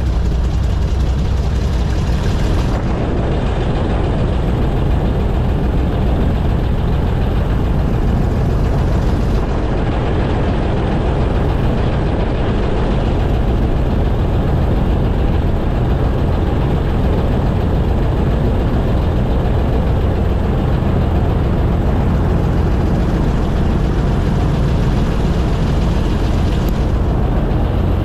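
Airboat's engine and propeller running steadily under way, heard from aboard as a loud, continuous drone.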